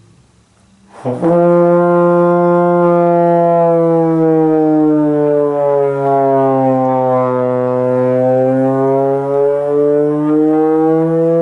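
Trombone playing one long held note starting on F, the slide pushed slowly out so the pitch glides down, then drawn back in so it glides back up to the F. It starts about a second in.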